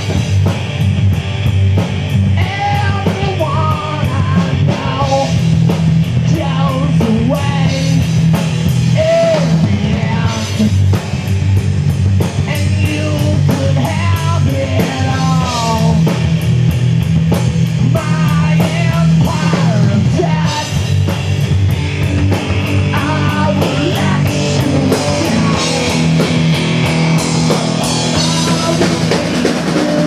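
Live rock band playing: electric guitars, bass and a drum kit with steady cymbal strikes, and a man singing into a microphone over the band.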